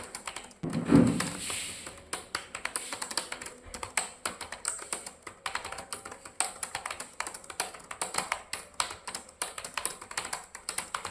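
Computer keyboard being typed on fast and continuously during a timed typing test: a dense, steady stream of key clicks. A brief low thump about a second in stands out above the typing.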